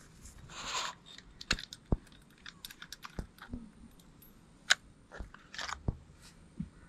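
Parts of a Sarsilmaz SA-X700 12-gauge semi-automatic shotgun being handled and fitted together: a rustle near the start, then a scatter of sharp clicks and light knocks of metal and synthetic parts.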